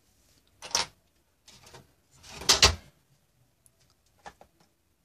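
Handling noise as a small circuit board is put down inside a metal amplifier chassis: a few short scrapes and knocks, the loudest about two and a half seconds in, then faint clicks near the end.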